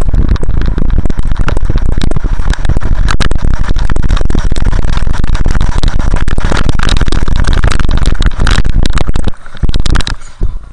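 Snowboard riding over snow, with wind buffeting the microphone: a loud, rough rush of noise with scraping and crackling from the board. Near the end the noise drops away as the board stops in a spray of snow.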